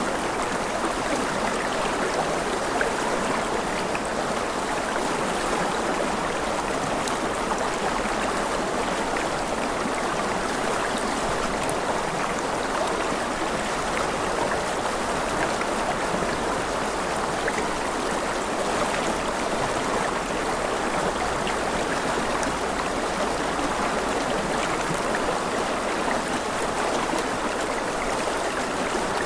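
A stream of running water flowing with a steady, even rush that does not change.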